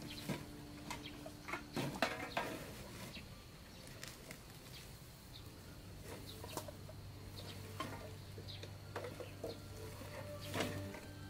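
Plastic rubbish crinkling and rustling in short, irregular bursts as it is stuffed into a woven sack, with chickens clucking now and then. A low steady hum comes in about halfway.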